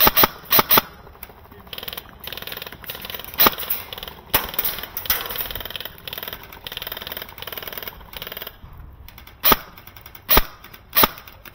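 Airsoft guns firing: a quick string of single shots at the start, then a long stretch of rapid, continuous fire with a few louder cracks in it. Near the end come three spaced single shots.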